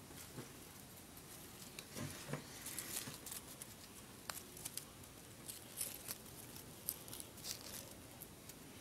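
Faint rustling and crinkling of paper strips and sticky tape being handled, with scattered small clicks.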